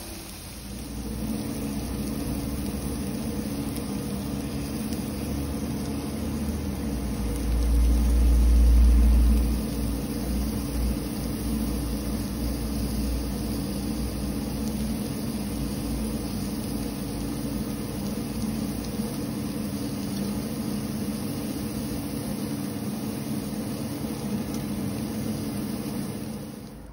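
A steady mechanical hum with a hiss over it, with a louder low rumble about eight seconds in. It cuts off suddenly at the end.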